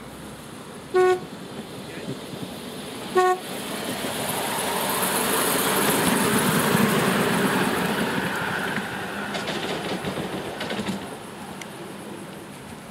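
Two short toots on a miniature railway locomotive's horn, about two seconds apart, then the small passenger train running past on the track, growing louder and fading away.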